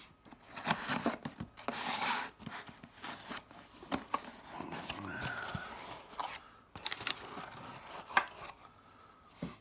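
A shipping package being opened by hand: tearing of tape and cardboard, with scattered clicks and scrapes as it is handled.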